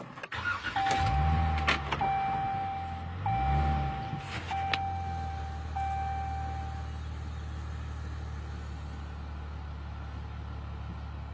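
Car engine running, rising and falling twice in the first few seconds, while a steady electronic warning chime sounds in five long tones and then stops about seven seconds in. A couple of sharp clicks.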